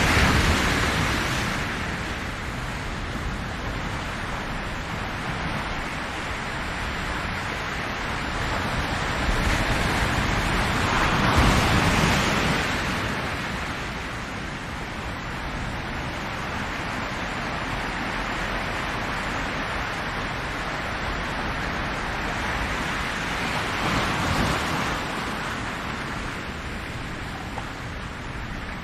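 Ocean waves breaking on a shore. Three louder surges come about twelve seconds apart, with a steady rushing wash of surf between them.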